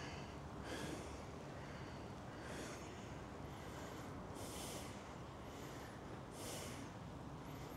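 A man breathing softly and evenly while exercising, a faint breath about every two seconds.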